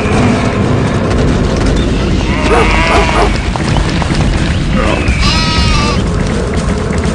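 Animal stampede sound effect: a dense, steady rumble of many running animals, with two short animal calls over it, about two and a half seconds in and again around five seconds.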